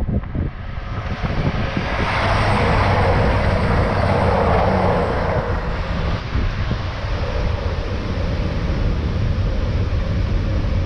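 A train passing at speed close by: a loud rush of wheel and traction noise that builds to a peak about two to five seconds in, then eases to a steadier running sound.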